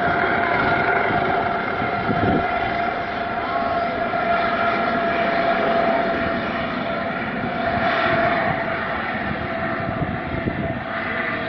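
Helicopter lifting off and climbing away, its turbine engine and rotor running with a steady whine over a continuous roar.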